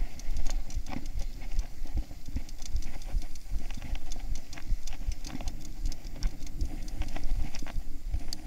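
Mountain bike rattling and knocking as it rides over a rough dirt singletrack: a dense, irregular stream of clicks and knocks over a low rumble.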